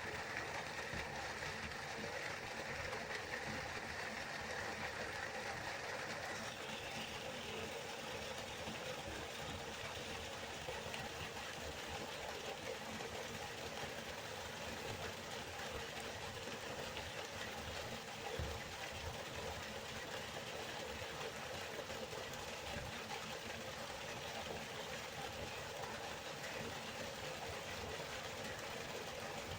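River water flowing, a steady even rushing noise; its texture shifts slightly about six seconds in.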